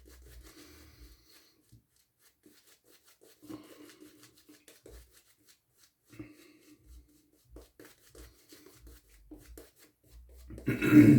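Synthetic shaving brush working lather onto stubble: faint, intermittent scratchy rustling with small clicks. A short, loud burst of voice near the end.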